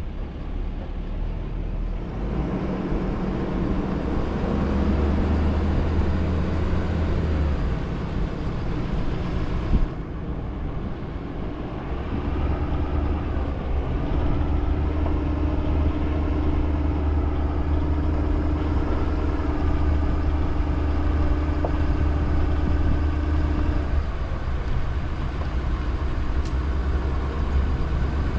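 Car driving at steady speed, heard from inside the cabin: a constant low road and engine rumble with a faint steady hum.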